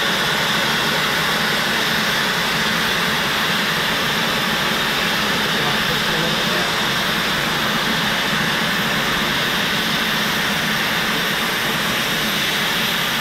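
Oxy-fuel cutting torch on a Victor DC2400 pattern-tracing duplicator, burning through 4-inch-thick plate: a steady, even hiss of the cutting jet.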